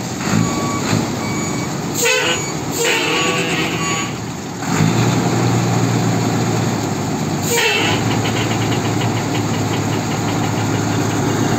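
Dodge 300 truck engine running as the truck pulls up and stops, with a few short squeals in the first half. The engine then settles into a steady low hum.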